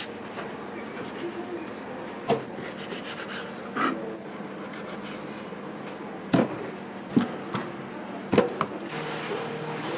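Kitchen knife cutting octopus on a plastic cutting board: about five sharp, widely spaced knocks of the blade and pieces on the board, over a steady low hum.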